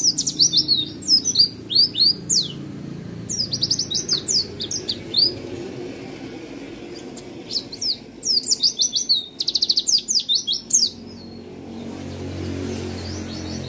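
Caged white-eye (pleci) singing in three loud bouts of fast, high, descending chirps, including a rapid rolling run of repeated notes, then falling silent for the last couple of seconds. A steady low hum sits beneath.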